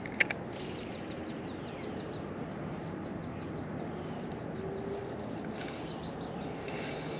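Steady outdoor background noise with faint, quick bird chirps repeating, and near the very start a sharp click followed at once by a smaller one.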